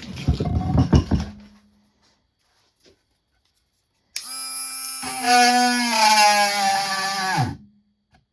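Knocks from handling the wood, then the Warrior rotary tool's small electric motor starts up with a steady whine, fitted with a drill bit. When the bit is pushed into the wood, the pitch sags and wavers, and near the end the motor winds down and stops; the tool bogs and stalls easily under load.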